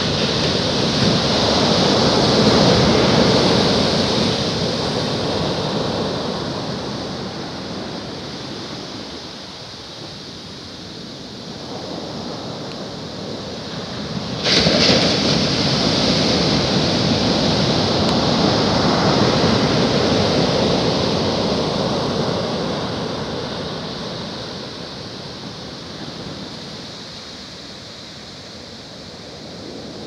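Ocean waves breaking and washing up the beach in two long surges: the surf runs loud at first and fades, then another wave breaks with a sudden crash about halfway through and its wash rolls on before fading toward the end.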